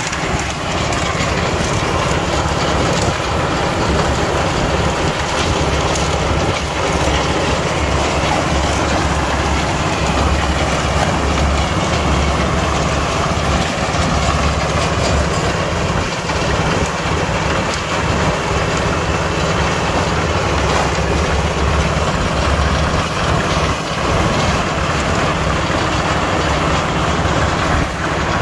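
An engine-driven concrete mixer running steadily, with a strong low hum, while it mixes a batch of cement.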